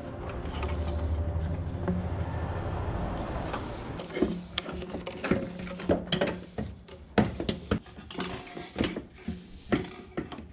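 Hand work on a car's intercooler charge pipe: irregular sharp clinks and knocks of metal and plastic parts and tools, starting about four seconds in, after a low steady hum.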